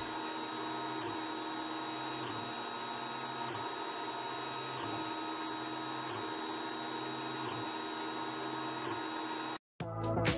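3D printer running: a steady whine of its stepper motors, many steady tones together that shift slightly about every second. It cuts off suddenly near the end.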